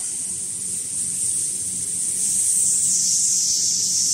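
Steady hiss with a low hum from running food-processing machinery.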